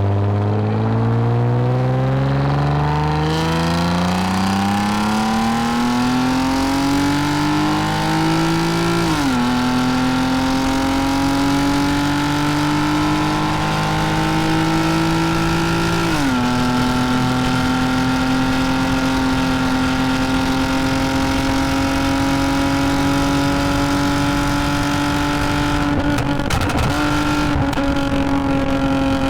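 2010 Lexus IS250 AWD's 2.5-litre V6 with a full aftermarket exhaust and valved mufflers, accelerating. Its pitch climbs steadily for about nine seconds, drops at an upshift, climbs more gently and drops at a second upshift about seven seconds later. It then holds nearly steady at cruise, easing slightly near the end.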